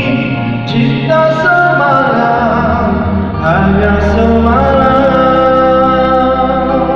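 A man singing a Malay song into a microphone through a PA, holding long notes with vibrato over backing music.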